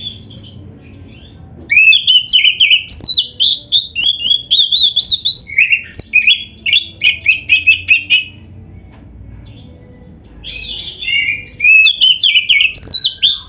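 Oriental magpie-robin (kacer) singing a fast, varied song of whistles, trills and chattering notes, stopping for about two seconds in the middle before starting again.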